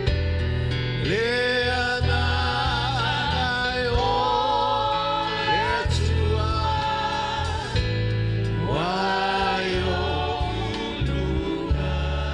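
Live gospel worship music: several singers on microphones singing together over a band with a bass line and drum kit. The voices slide up into each new phrase about every four seconds.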